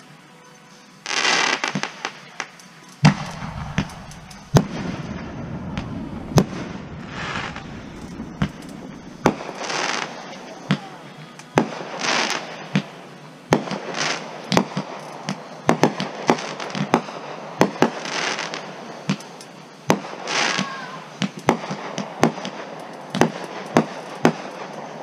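Aerial fireworks going off: a rapid string of sharp bangs and pops, about two a second, mixed with stretches of hissing crackle that last about a second each.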